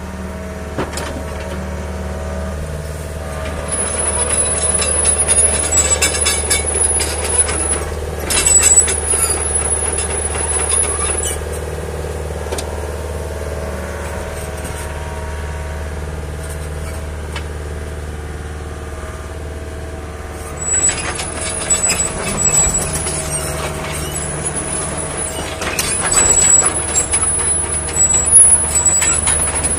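Hyundai R55-5 midi crawler excavator's diesel engine running steadily under load as the machine is worked and driven on its steel tracks. High squeals and clanking from the running gear and hydraulics come in bursts from about four to eleven seconds in and again from about twenty-one seconds on.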